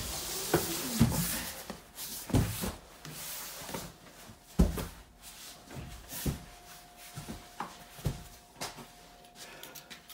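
Clothing rustling close by as a person brushes past, followed by scattered knocks and thumps of someone moving about and handling things in a small room. A faint steady tone runs through the second half.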